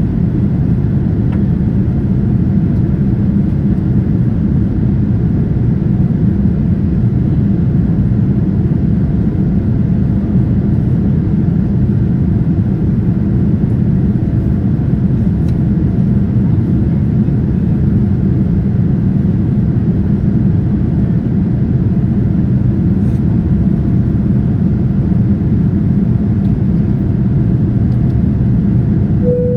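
Steady, loud low rumble inside the cabin of a Boeing 787-9 airliner, from its engines and the cabin around them. A brief single tone sounds right at the end.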